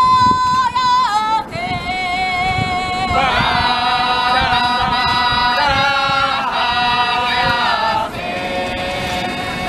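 High voices singing a slow unaccompanied chant in long held notes, opening a taiko piece. A single voice sings at first; others join about three seconds in, and it thins back to one voice near the end.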